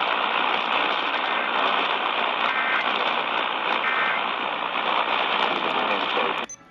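Steady radio static hiss with the top end cut off, as heard through a broadcast receiver; it cuts off suddenly near the end.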